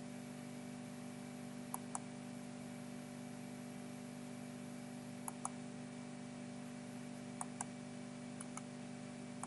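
Computer mouse button clicks, coming in close pairs about a fifth of a second apart, five times, over a steady low hum.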